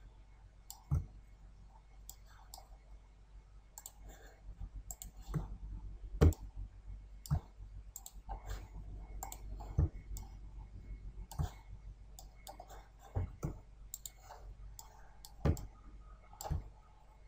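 Computer mouse clicking, about a dozen sharp clicks at irregular intervals, over a steady low hum.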